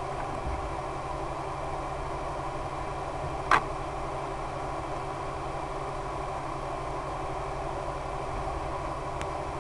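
A steady low drone with a constant hum, broken by one sharp loud click about three and a half seconds in and a faint tick near the end.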